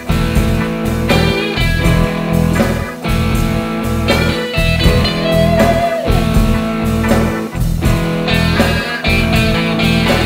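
Background music: a blues-rock band track with electric guitar over a steady beat.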